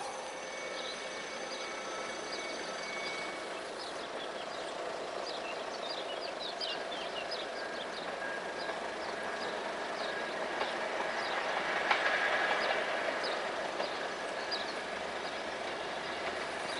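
Small birds chirping in short falling notes, over the low rumble of a distant train approaching along the line, which grows louder about ten seconds in.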